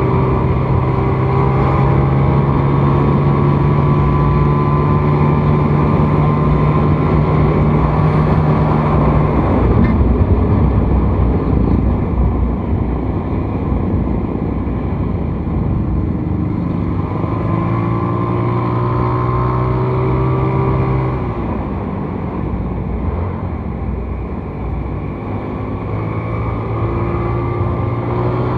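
Small motorcycle's engine running while riding, with rushing wind and road noise. The steady engine note sinks under the rushing noise about a third of the way in, returns for a few seconds past the middle, and comes back near the end.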